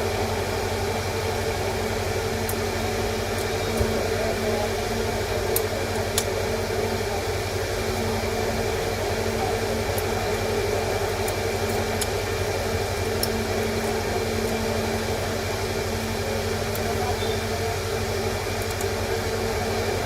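Steady machine hum and hiss with a few constant drone tones, like a fan or air conditioner running.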